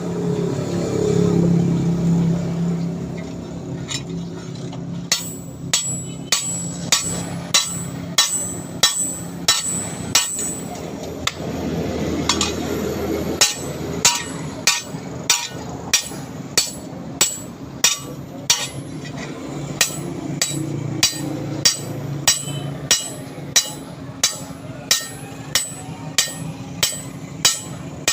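Blacksmith's hand hammer striking steel in a steady rhythm of about two sharp, ringing blows a second, starting about five seconds in and pausing briefly in the middle.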